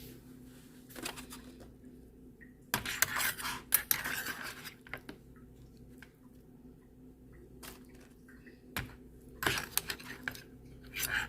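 Serving utensils and plates clinking and scraping in scattered bursts as food is dished out, with a longer run of scraping about three seconds in.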